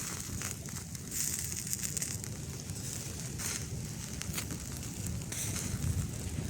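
Open wood fire crackling, with scattered sharp snaps over a steady low rumble.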